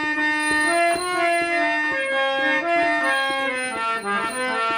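Instrumental music between sung lines of a devotional folk song: a melody of held, stepping notes on a reed keyboard instrument, with light drum taps.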